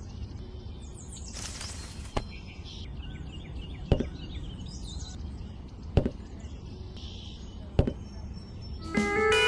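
Four sharp, evenly spaced blows about two seconds apart, like manual chopping or striking with a tool, with birds chirping in the background. Music starts just before the end.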